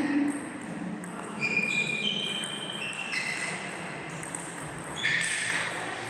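Table tennis rally: the ball clicking off bats and table, with short high squeaks from shoes on the hall floor and a scuff about five seconds in.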